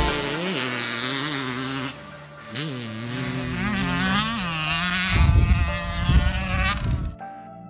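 Dirt bike engine revving, its pitch rising and falling again and again with the throttle, with a brief drop about two seconds in and a louder low rumble late on. It cuts off near the end, leaving soft ambient music.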